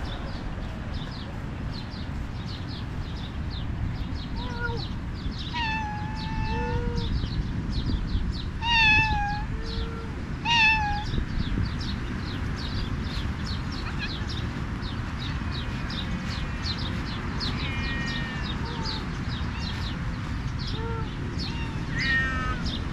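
Cats meowing: about five drawn-out meows a few seconds apart, the loudest two near the middle. Underneath run a steady low rumble and rapid high chirping.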